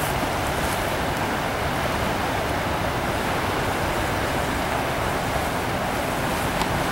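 Stiff wind blowing steadily, an even rushing noise with no breaks.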